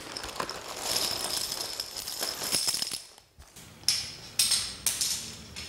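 Small plastic solar-panel frame clamps and steel bolts and washers rattling and clinking as they are handled on a tile floor. The rattle is continuous for about three seconds, then a few separate sharp clicks follow.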